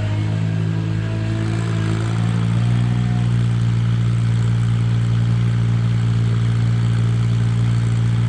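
An engine running steadily at idle, its pitch rising slightly about two seconds in and then holding even.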